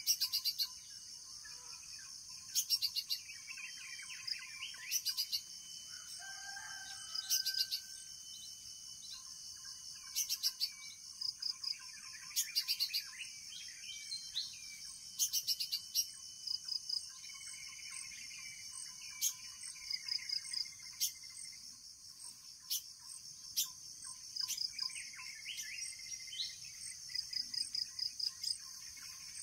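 Outdoor nature ambience: birds chirping and calling over a steady high-pitched insect drone, with short bursts of sharp chirps every second or few.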